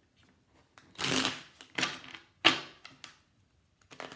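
A deck of reading cards being shuffled by hand: three quick rasping bursts of sliding cards starting about a second in, with a few light clicks of the deck near the start and end.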